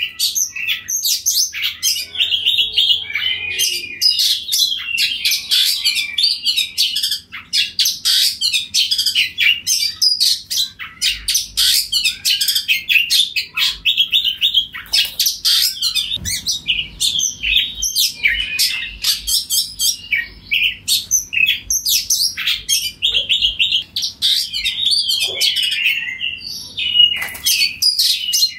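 Oriental magpie-robin singing a loud, continuous, varied song of rapid chirps, whistles and trills, with only brief pauses.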